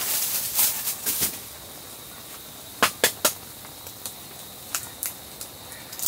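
Instant noodles boiling in a stainless steel pot, a crackly hiss of bubbling for about the first second. About three seconds in come three sharp taps in quick succession, an egg being cracked on the pot's rim, followed by a few faint clicks.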